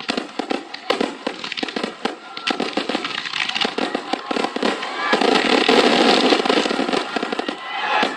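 Aerial fireworks going off in rapid succession: a dense run of sharp cracks and pops, many a second, swelling into a louder, continuous crackle for a couple of seconds after the middle.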